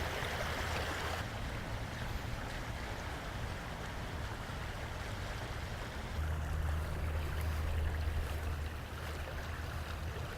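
Water rushing over a rock in a small waterfall, a steady splashing hiss. A low rumble grows stronger about six seconds in and eases near the end.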